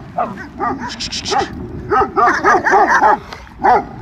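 Dogs barking in a tense stand-off between leashed and loose dogs: about ten sharp barks, a few scattered at first and then a rapid run of barks a little past halfway, with one more near the end.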